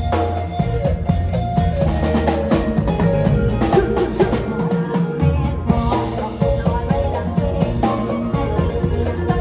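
Instrumental Isan band music: a keyboard playing Isan-style sounds over a drum kit and bass, with a steady beat. The bass and kick drop out briefly about five seconds in, then come back.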